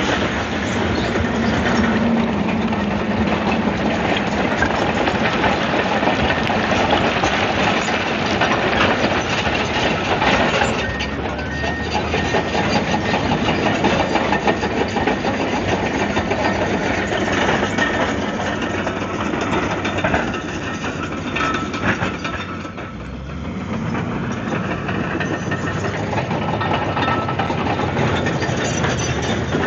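Komatsu D155AX-7 crawler bulldozer working: its diesel engine running steadily under load, with a dense clanking of the steel tracks. The sound eases briefly about three-quarters of the way through, then picks up again.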